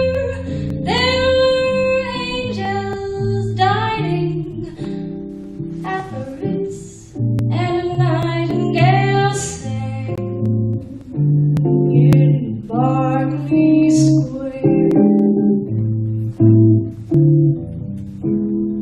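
A woman singing a slow song, her voice gliding between notes, over a plucked guitar accompaniment.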